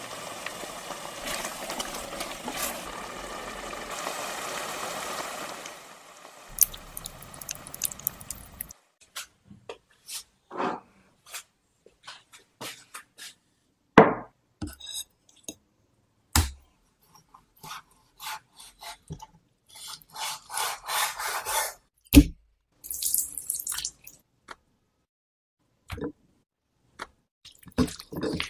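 Tomato and chicken simmering in a cast-iron pot, a steady bubbling that stops about six seconds in. Then come scattered short clicks, taps and rubbing as fish fillets are handled and mixed by hand on a ceramic plate, with silent gaps between.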